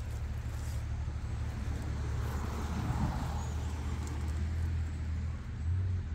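Electric motor and gear drivetrain of an Absima Sherpa RC pickup truck whirring steadily as it crawls over a rock.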